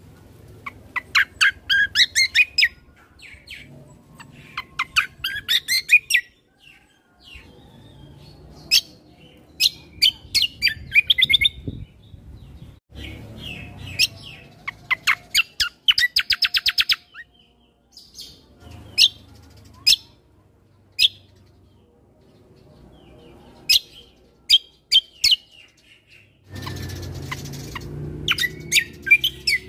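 Kecial kombo singing in short bursts of sharp, rapid chirps and whistled notes with brief pauses between phrases, including one fast, even trill midway. A louder low background rumble comes in near the end.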